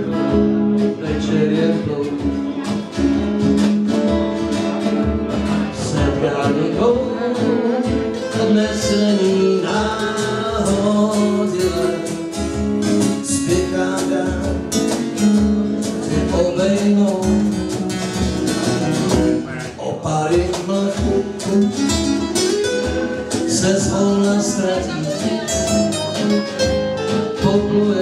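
Live acoustic band playing: several acoustic guitars strummed and picked, with a singer's voice over them.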